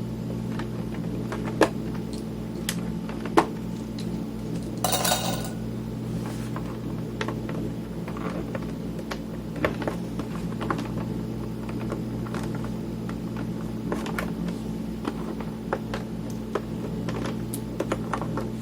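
Small metal clicks and clinks of screws, small parts and a screwdriver being handled while a Tascam Portastudio 414 MKII is taken apart, with a brief rattling scrape about five seconds in. A steady electrical hum runs underneath.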